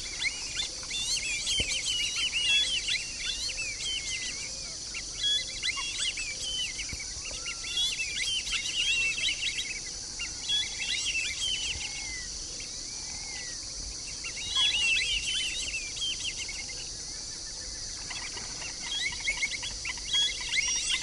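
Black-bellied whistling ducks calling, with many short whistled notes overlapping in quick chattering clusters and a few pauses between them. A steady high insect drone runs underneath.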